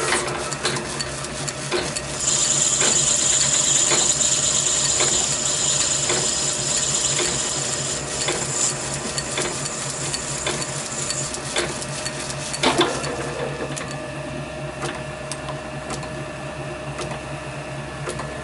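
Small metal lathe turning a brass bar down to 8 mm diameter: the tool cutting the brass gives a high hiss from about two seconds in until about eleven seconds, over the lathe's steady motor hum and scattered small clicks.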